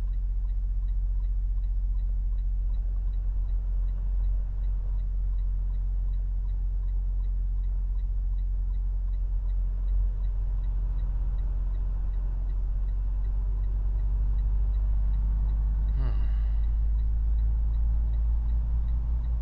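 Semi-truck diesel engine running steadily, with a faint regular ticking over it and a brief squeak about sixteen seconds in.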